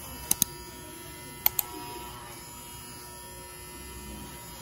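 Electric hair clippers running with a steady hum while cutting a man's hair. Two pairs of short, sharp clicks sound in the first second and a half.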